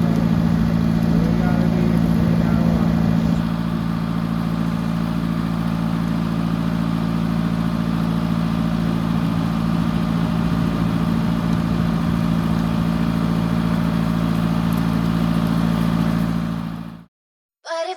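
Tractor engine running steadily at a constant speed, as when working an orchard brush sweeper. It cuts off suddenly near the end.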